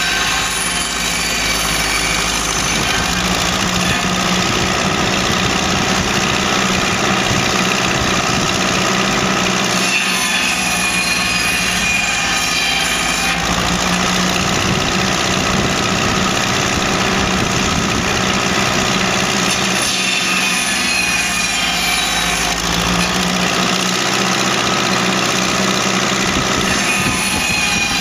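Ferguson TED20 tractor engine running steadily to drive a circular saw bench at about 1300 rpm, while logs are fed through it in several cuts one after another; the sound shifts a little as each cut goes in and finishes.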